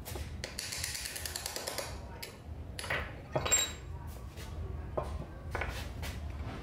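Metal parts of an old electric chainsaw's gear housing being worked by hand with tools: a scraping rasp in the first couple of seconds, then scattered knocks and a sharp metallic clink that rings briefly about three and a half seconds in.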